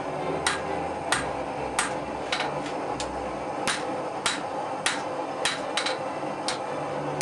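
Hammer blows on steel at the anvil while drawing out a Japanese sword blank (the sunobe): sharp ringing strikes, about one every half-second or so, with a few quick double strikes, over a steady hiss.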